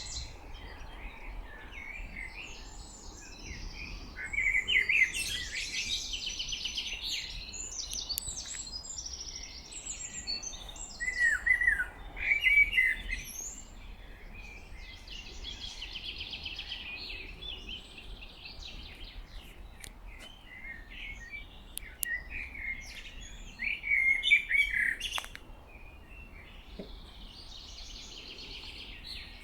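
Several songbirds singing in a spring forest, chirping and warbling phrases that overlap and come one after another, with the loudest bursts about five seconds in, around twelve seconds and near twenty-four seconds.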